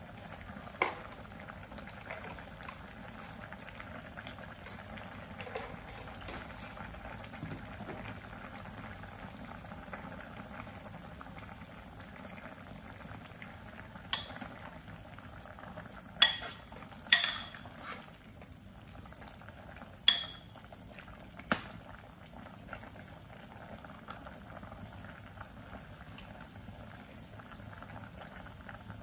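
Pot of chicken soup boiling hard, a steady bubbling hiss. Between about 14 and 22 seconds in, a stainless steel ladle stirs it and clinks against the pot about five times.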